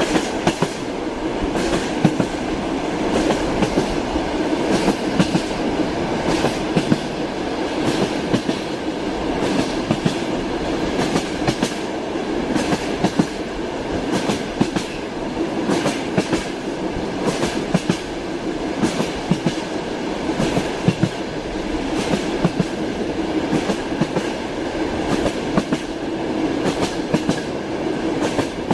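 Train wheels clattering over rail joints, a steady rumble of the moving railway carriage with repeated clicks, often in close pairs and groups.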